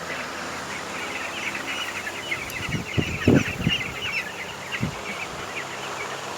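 A flock of poultry-farm chickens calling all at once, a dense stream of high chirping that thins out near the end, with a few low knocks around the middle.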